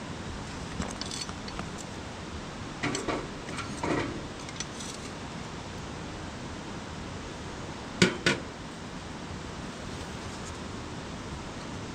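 Clinks and knocks of metal camp gear or cookware being handled, with two sharp knocks close together about eight seconds in. Under them runs the steady rush of flowing stream water.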